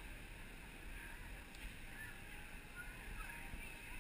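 Faint outdoor ambience: distant voices over a low steady rumble.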